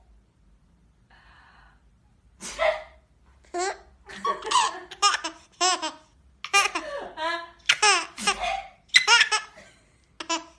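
A baby girl laughing in a string of short bursts of high-pitched belly laughs and giggles, starting about two and a half seconds in, set off by her mother's coughing.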